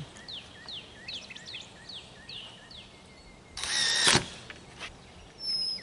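A songbird singing a series of clear whistled notes, each sliding downward, repeated about twice a second. Midway a brief louder sound with a wavering pitch cuts across, and a short high thin tone comes near the end.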